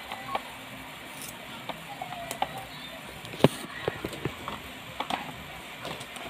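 Scattered small clicks and taps from hands working at a cardboard-and-plastic doll box, with one sharp click about three and a half seconds in.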